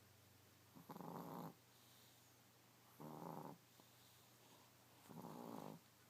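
Chihuahua snoring in its sleep: three snores about two seconds apart, each lasting about half a second.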